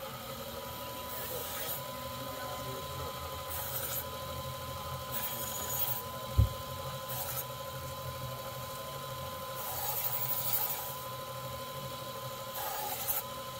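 Small bench belt grinder running with a steady whine while a kitchen knife blade is drawn across the moving abrasive belt in short sharpening passes, each pass a brief hiss. A single sharp knock about six and a half seconds in.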